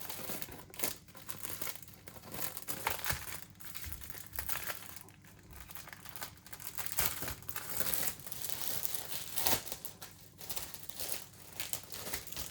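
Packaging being opened by hand: paper or plastic crinkling and rustling with occasional tearing, in irregular bursts of crackles.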